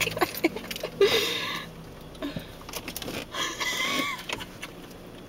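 Hard, breathless laughter with high squeals: people laughing so much they can barely speak.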